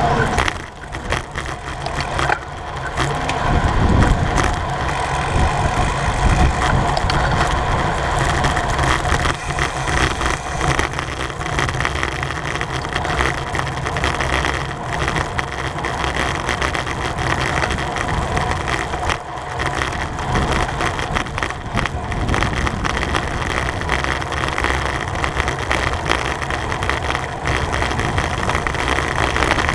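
Steady rushing wind and road noise from riding at speed in a road bicycle race, loud and unbroken, with a low rumble underneath.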